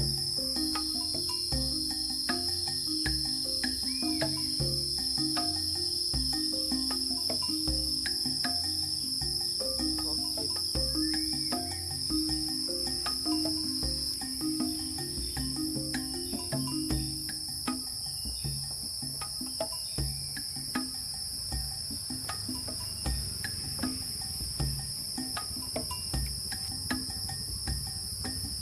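A steady, high-pitched chorus of forest insects such as crickets and cicadas, with scattered clicks and knocks and a low, repeating pulsing sound that stops about two-thirds of the way through.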